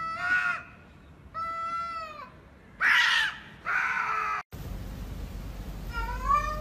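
Two domestic cats yowling at each other in a standoff: four drawn-out, wavering yowls in quick succession, cut off suddenly. Near the end comes one short rising cat call.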